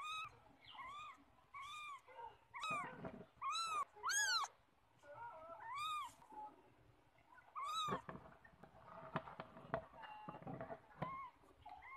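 A cat meowing over and over: about ten short, high, arched meows, the loudest about four seconds in, growing sparser and fainter in the second half, with a few soft taps.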